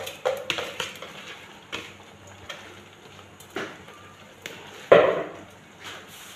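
Rice being tipped from a plastic bowl into a cooking pot: irregular taps and knocks as the bowl is shaken over the pot, the loudest knock about five seconds in.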